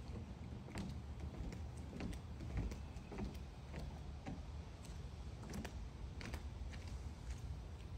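Footsteps of a person walking over a wooden deck and paving stones: irregular light clicks and scuffs about every half second to second, over a steady low rumble.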